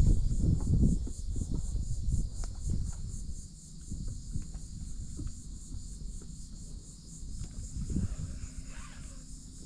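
Insects trilling steadily in a high, even pulse, over a low rumble and a few light knocks that fade over the first three seconds.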